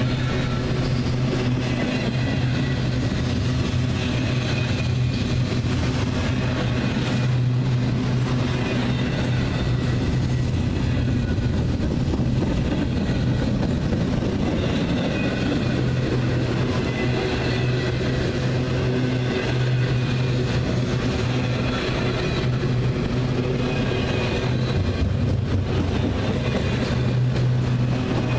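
Double-stack intermodal freight cars rolling past close by: a steady, continuous rumble of steel wheels on rail.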